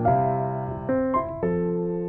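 Background music: a gentle electric piano playing a slow melody over sustained chords, with a new note or chord about every half second.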